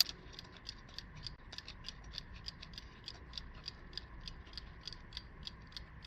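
Freshly wound mechanical alarm clock ticking: a faint, steady run of rapid, even ticks from its movement.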